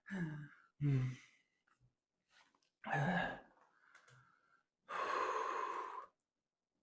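A man breathing hard and sighing: three short voiced breaths in the first three seconds or so, then one long breathy exhale of over a second about five seconds in. This is the strained breathing of someone bloated from gulping Sprite, in discomfort.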